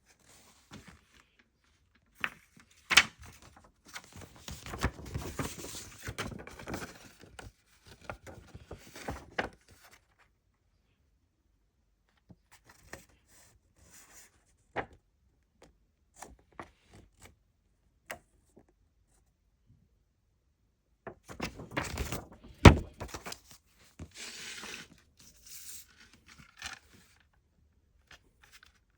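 A CD and its case being handled and opened: scattered clicks and knocks of hard plastic with stretches of rustling. The loudest is a sharp knock about two-thirds of the way through.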